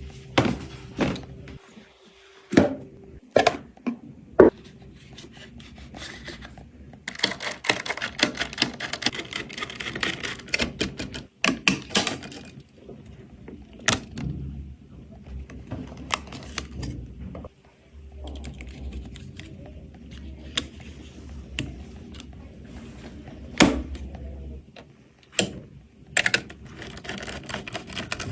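Clicks, taps and light rattles of computer parts being handled and fitted, with a run of rapid clicking about a third of the way in and a faint steady hum beneath.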